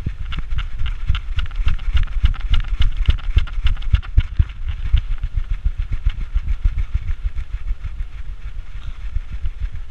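Rumbling handling noise from an action camera strapped to a dog's back as he trots, with quick irregular knocks, several a second, as the mount jolts with his strides.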